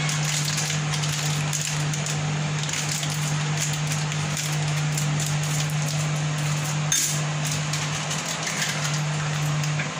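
Plastic custard-powder packet crinkling and crackling as it is handled, over a steady low hum.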